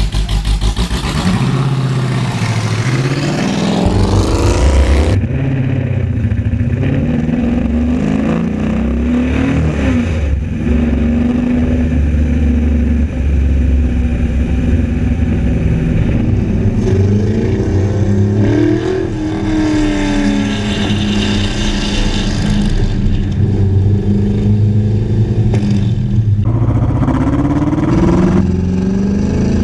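LS3 V8 engine of an RCR Ferrari 330 P4 replica race car driving on the road, its revs climbing and dropping back several times as it accelerates through the gears.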